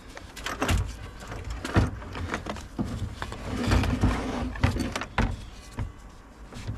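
Irregular clicks, knocks and rustling of hand tools and metal parts being worked loose in a car's engine bay, busiest about halfway through.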